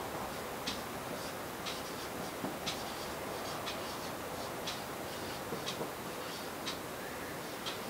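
Whiteboard marker writing letters on a whiteboard: a string of short, high, scratchy strokes and taps, roughly one or two a second.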